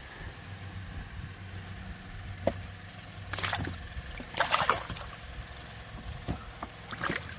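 Engel live-bait cooler with its aerator pump humming steadily; about halfway through the lid's latches click and the lid opens, then water sloshes and bubbles in the live well.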